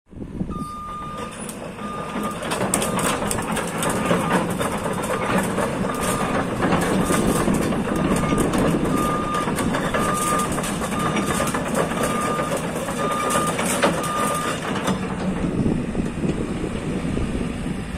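JCB JS220 tracked excavator's travel alarm beeping about once a second over its running diesel engine, with clanking and knocking, typical of the machine tracking. The beeps and clanking stop about 15 seconds in, and the engine keeps running more quietly.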